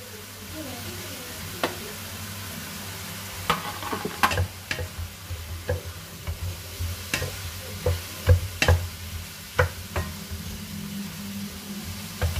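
Squid and vegetables sizzling in a kawali (wok-style frying pan) as they are stir-fried, a spatula knocking and scraping against the pan in sharp clacks that come often from about three seconds in. A low steady hum runs underneath.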